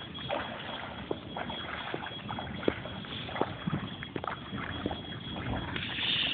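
Feet wading through ankle-deep floodwater: irregular small splashes and sloshing over a steady watery hiss.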